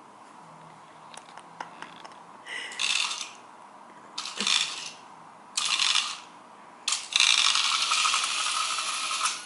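Motorised toy cobra snake wriggling over a tile floor in bursts, its plastic body rattling on the tiles: three short bursts, then a longer one of about two and a half seconds near the end.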